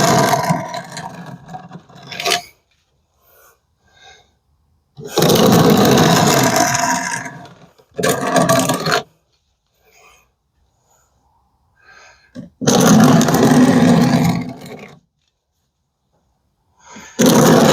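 Kukri blade ground against a 1x30 sanding belt for a convex edge: a loud, coarse scraping in about four passes of roughly two seconds each, with quiet pauses between.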